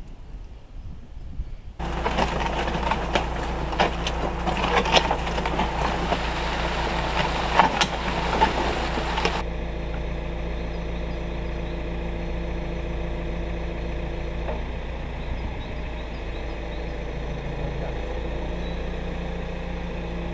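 Manitou telehandler's diesel engine running steadily. For the first seven seconds or so, a loud clattering rush with sharp clicks sounds over it and then stops.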